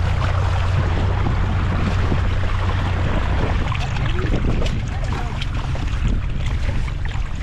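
A small boat motor running with a steady low hum, under wind and water noise; the hum fades after about three seconds.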